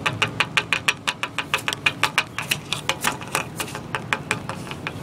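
A small plastic toy figure tapping rapidly against a plastic toy plate, playing at eating. The clicks come quick and even, about five or six a second, and die away near the end.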